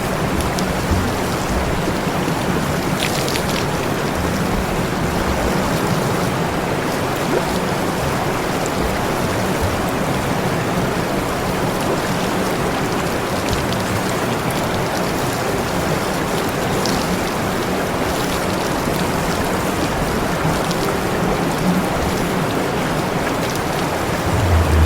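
Water spraying in a steady rushing hiss, with a low steady hum underneath.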